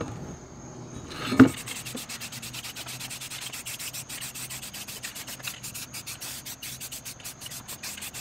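Aerosol spray paint can hissing in many short sprays, a few a second, after a single thump about a second and a half in.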